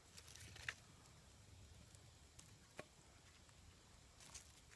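Near silence broken by a few faint, sharp clicks and snaps of hardwood sticks being handled and laid on a small campfire, the loudest under a second in.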